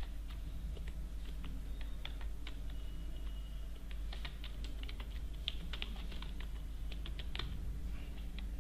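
Computer keyboard being typed on: irregular, quick key clicks over a steady low hum.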